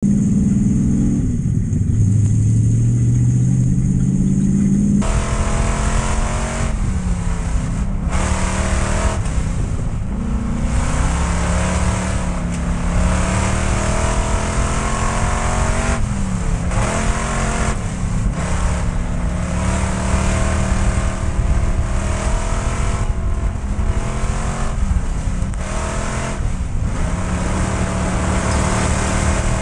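Pure Stock dirt-track race car's engine heard from inside the cockpit, running hard. Its revs dip and climb back again every few seconds. For the first five seconds the note is lower and muffled and rises steadily, then it changes suddenly to the full, brighter engine sound.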